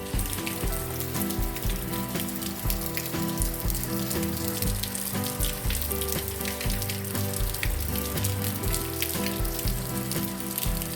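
Heavy rain falling as a dense crackling patter, with background music with a steady beat playing under it.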